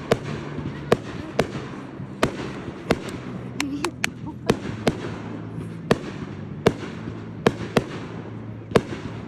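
Fireworks going off: sharp bangs at irregular intervals, about one or two a second, with a quick run of pops near the middle.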